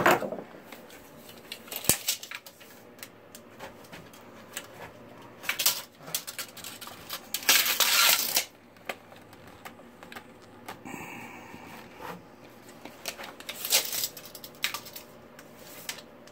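Handling noises as parts are fitted on an oar: scattered clicks and light knocks, with a longer scraping rustle about seven to eight seconds in.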